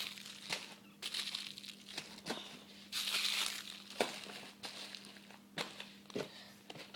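Crinkling and rustling of plastic-wrapped firework packaging being handled, in irregular swells with sharp clicks and knocks between them.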